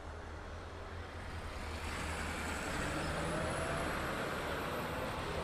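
Diesel locomotive engine running with a steady low rumble that grows louder from about two seconds in, with a faint high-pitched squeal over it.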